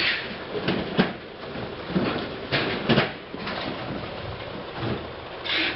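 Automatic hair conditioner filling and capping machine running, with irregular mechanical clicks and knocks about once a second. A short hiss comes near the end.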